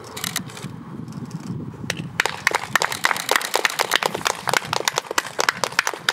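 Small audience applauding, scattered hand claps that thicken into steady clapping about two seconds in.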